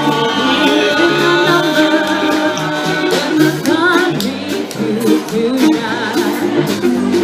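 Live traditional New Orleans jazz from a small band: a walking bass line under a wavering, vibrato-laden melody.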